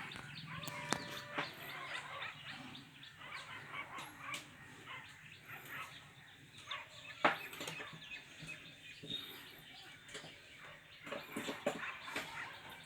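Birds calling in the background, with scattered light clicks and taps; the loudest click comes a little past halfway.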